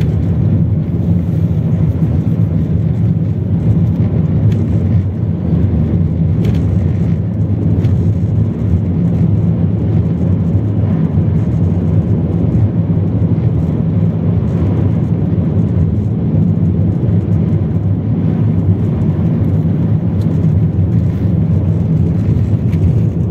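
Car driving on a sandy, unpaved desert track, heard from inside the cabin: a steady, loud low rumble of engine and tyres.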